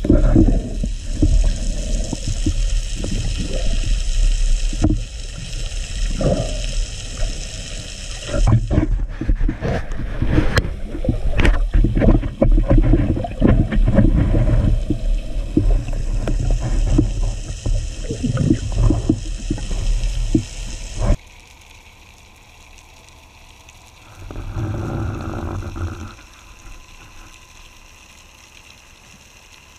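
Underwater sound of a speared thicklip trevally struggling on the spear shaft and line beside a wooden speargun, with irregular knocks and rattles over a low rumble. About two-thirds through it cuts off abruptly to a faint underwater hush, broken once by a louder sound lasting about two seconds.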